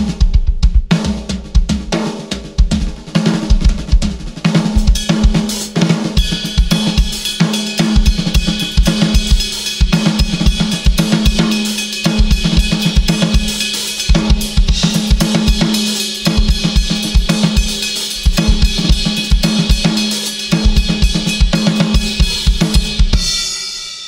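Acoustic drum kit played in a fast freestyle groove: quick runs of bass-drum strokes under snare and tom hits, with hi-hat and crash cymbals ringing, the cymbals thickening about six seconds in. It ends with the cymbals dying away.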